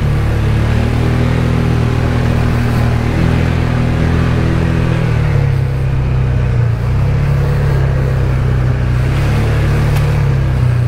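ATV engine running steadily at low speed under way, its note shifting slightly about halfway through.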